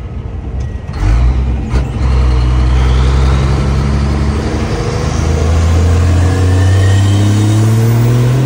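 Formula Truck race truck's diesel engine, heard from inside the cab, pulling hard under acceleration. It gets louder about a second in, and its pitch climbs steadily over the last few seconds.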